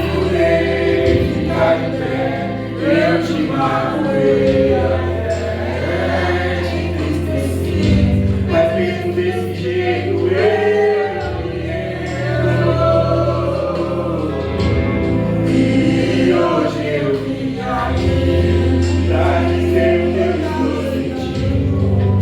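Gospel song: voices singing over instrumental backing with sustained bass notes.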